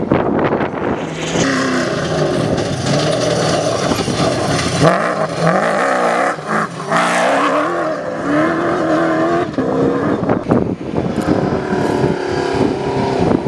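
Rally pickup trucks' engines revving hard as they race past on a dirt track, with tyre and gravel noise. The engine pitch rises and falls again and again.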